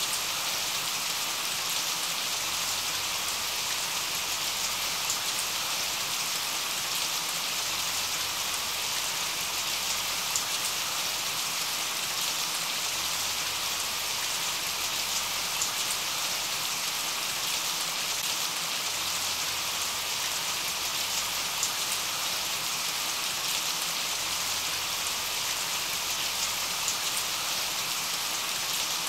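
Steady rain falling: an even hiss with faint scattered drop ticks, unchanging throughout.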